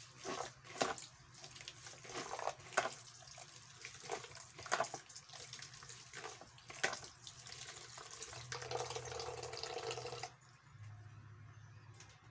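Kitchen tap running into a plastic basin while hands knead and squeeze wet grated coconut to press out coconut milk, with repeated short splashing squelches. The water stops suddenly about ten seconds in.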